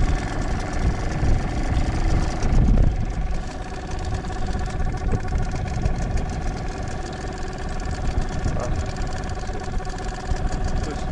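Small outboard motor on an inflatable boat running steadily at low speed, with wind buffeting the microphone, most strongly a couple of seconds in.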